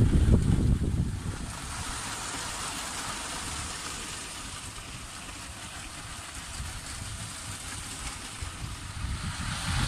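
Lego trains running on plastic track: the low rumble of a close train's wheels and motor fades about a second in, leaving a quieter steady running noise from trains further off, which grows louder again near the end.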